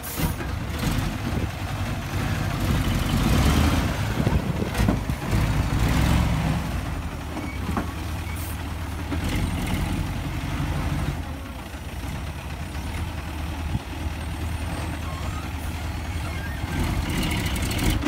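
Dump truck's diesel engine running under load, louder in the first several seconds and then steadier, as the truck pulls forward with its tipper body raised and then lowers it. A few faint clicks and knocks are mixed in.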